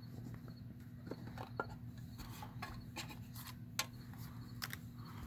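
Packaging being handled: scattered light rustles and sharp clicks, with a steady low hum underneath.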